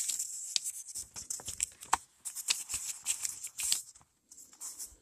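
Paperback book pages being turned and handled close to the microphone: a run of crinkly paper rustles and short ticks that stop and start.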